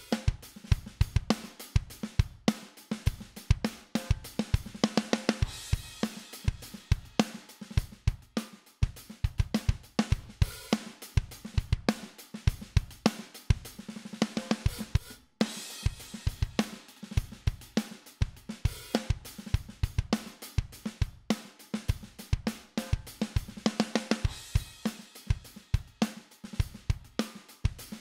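Recorded drum kit groove of kick, snare, hi-hats and cymbal crashes playing back through a Midas 522 500-series compressor on the drum bus. Cymbal crashes come about 5, 14 and 24 seconds in, and the groove drops out briefly just after 15 seconds.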